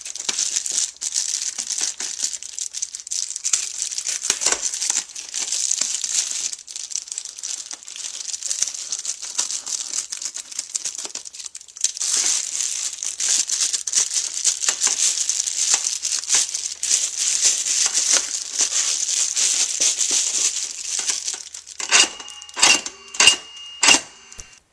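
Reflectix foil bubble insulation crinkling and tearing as a section is cut out with a knife and pulled away. Near the end come four or five sharp, ringing metal clacks from the steel garage door slide lock being worked.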